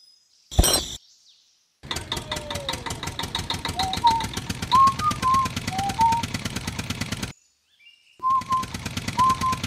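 A sharp click as the toy trolley's hitch is snapped onto the tractor, then a small tractor engine chugging in a fast, even rhythm with birds chirping over it. The engine sound cuts out for about a second near the end, then starts again.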